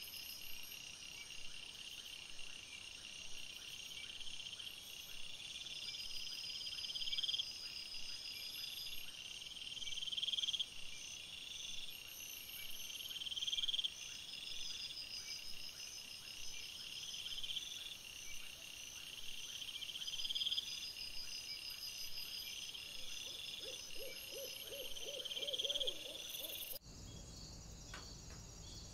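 Night insect chorus: steady high cricket chirring, with a louder trill that swells and stops every few seconds. A short run of lower, quick chirps sounds near the end.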